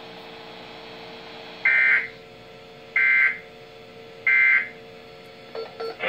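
Weather radio sounding the three EAS end-of-message data bursts: short, shrill digital screeches about a second apart that mark the close of an emergency alert broadcast. A faint steady hum runs underneath.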